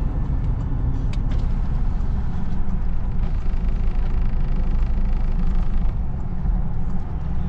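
Steady road and engine rumble of a car heard from inside the cabin while driving at speed.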